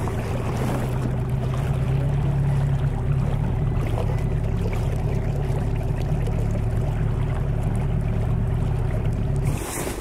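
Hidea 9.9 outboard motor running at a steady speed, pushing the inflatable boat along over water and wind noise; the motor sound cuts off abruptly near the end.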